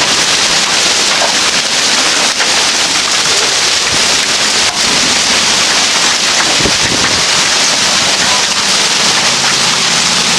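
Hail and heavy rain pelting down, a loud, steady, dense hiss with a few sharper hits standing out.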